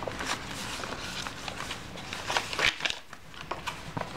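Tea-dyed paper pages of a handmade journal being turned and handled, a series of rustles and crinkles, the loudest about two and a half seconds in.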